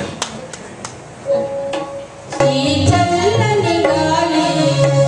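A few last scattered claps fade out. About a second and a half in, an electronic keyboard holds a single note, and about a second later a song's instrumental introduction starts on keyboard with tabla.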